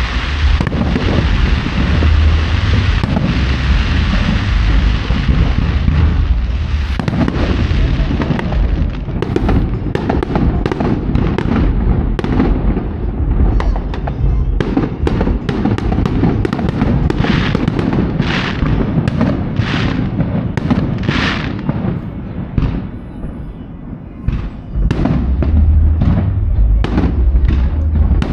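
Aerial fireworks display: for the first several seconds a dense, continuous rumble and crackle of overlapping bursts, then a quick series of separate bangs, some trailing into a short crackle, with a brief lull shortly before the end.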